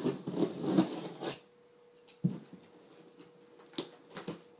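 Cardboard shipping box being handled and opened: a second or so of scraping and rustling from the flaps, then a few short knocks and taps on the box.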